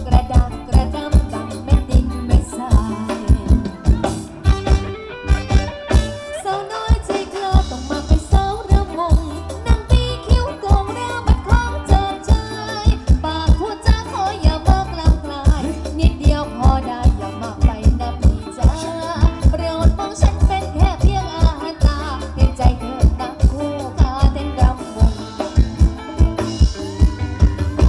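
Live Thai ramwong band music played through PA loudspeakers: a steady, even drum beat with rattling percussion under a melody and singing.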